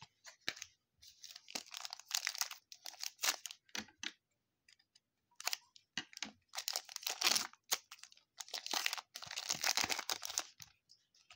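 Foil trading-card pack wrapper crinkling in the hands in several rustling spells, then tearing open near the end.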